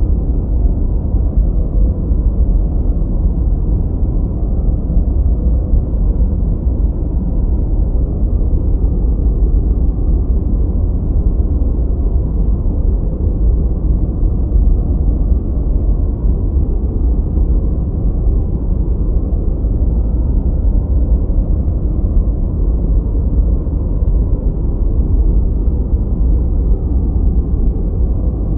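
Steady, deep rushing noise from a 'white noise' track for study and sleep, heaviest in the low end and muffled, with almost nothing in the treble. It stays unchanged throughout.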